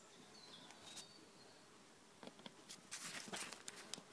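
Faint rustling of tarp fabric being handled, with small soft clicks as pins are pushed through it with a thimble, mostly in the second half.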